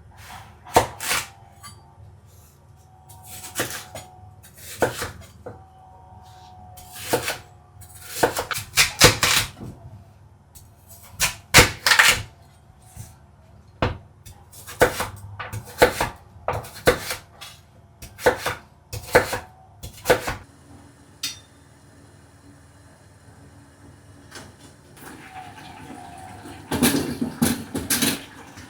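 Kitchen clatter of cookware and utensils: a string of sharp knocks and clinks, over a low steady hum that cuts off about twenty seconds in.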